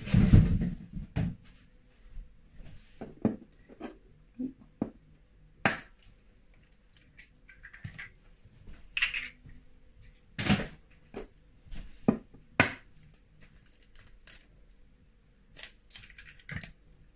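Eggs being cracked open by hand: a few sharp taps of eggshell, several seconds apart, with small crackles of shell being pulled apart. A heavier knock comes right at the start.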